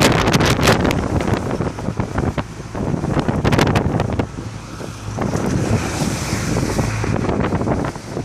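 Strong wind buffeting the microphone over the rush and splash of big waves, loud and gusty with several sharp surges.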